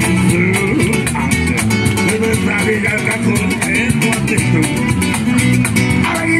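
Live acoustic band playing a Latin-flavoured rhythm: strummed acoustic guitar, electric bass and a cajón keeping a steady beat.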